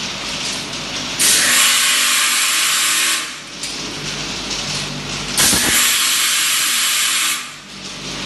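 Linear vial washing machine running, its spray jets hissing on in sudden bursts about two seconds long that repeat roughly every four seconds, with the machine's steady mechanical running sound between bursts.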